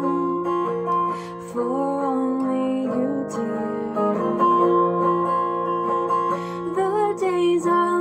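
Les Paul-style electric guitar strummed in steady chords, with a voice singing over it.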